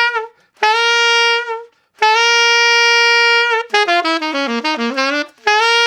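Saxophone playing a short demonstration phrase of grace notes: held notes at the same pitch, each flicked into from just below, and in the middle a quick run of notes that dips down and climbs back up before the held note returns.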